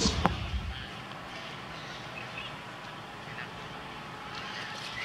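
A few short, faint animal calls over a steady outdoor background, after a single click near the start.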